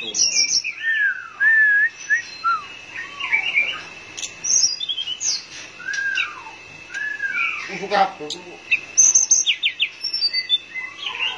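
Caged hill blue flycatcher (tledekan) singing: a string of clear whistled notes, some arching or sliding in pitch, mixed with quick, high falling phrases.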